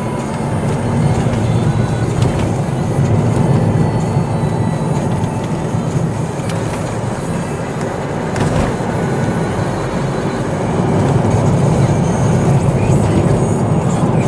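Steady engine and road noise of a car, heard from inside the cabin while driving.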